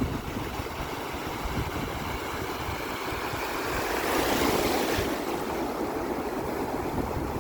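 Sea waves washing ashore, with one louder wave breaking about four seconds in and cutting off sharply about a second later. Wind buffets the microphone with a low rumble throughout.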